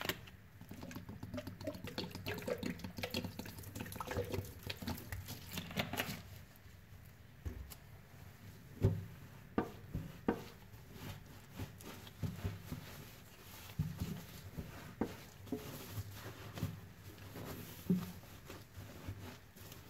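Wet foam sponges squeezed and pressed by hands in nitrile gloves in a stainless steel sink, squelching, with water crackling and dripping as it is pressed out. Dense crackling for the first six seconds, then quieter, with separate wet squishes every second or few.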